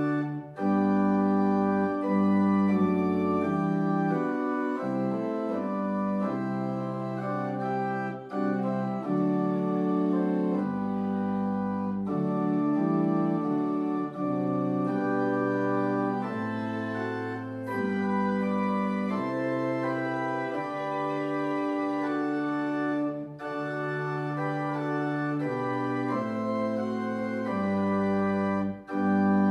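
Church organ playing a hymn in full held chords that change every second or two, with a few brief breaks between phrases.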